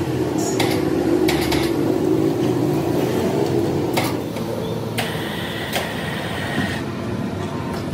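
Workshop machinery running with a steady hum, broken by several sharp knocks.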